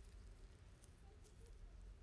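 Near silence: faint low room hum with a couple of faint light ticks.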